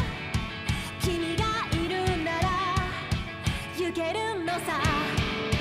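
Japanese pop-rock song: a sung melody with vibrato over a steady drum beat and guitar.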